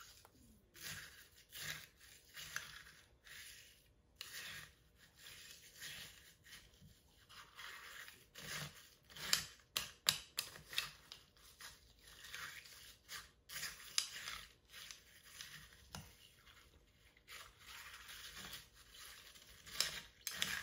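Long spoon stirring crushed ice in a tall glass: irregular scraping, crunching strokes of ice against the glass and spoon, about one or two a second.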